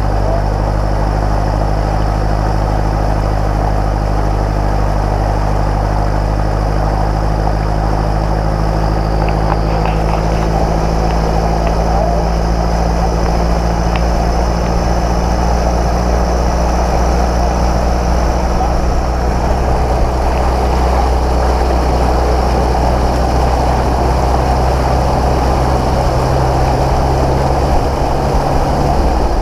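A 4x4's engine drones steadily as the vehicle ploughs through deep floodwater, with a continuous rush of water spraying and surging along its side. The steady engine drone breaks off near the end.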